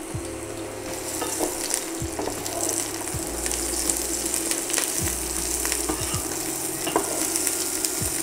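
Sliced champignon mushrooms sizzling in hot olive oil in a non-stick pot, stirred with a wooden spatula that scrapes and taps against the pan every second or so, over a steady low hum.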